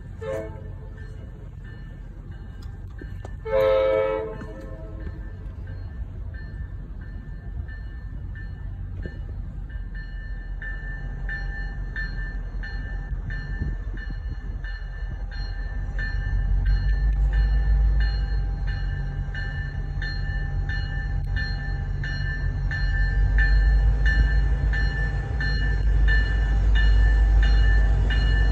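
F40PH-2C diesel locomotive approaching, giving a short horn blast about three and a half seconds in. A bell then rings at an even pace while the locomotive's low rumble grows louder as it draws near.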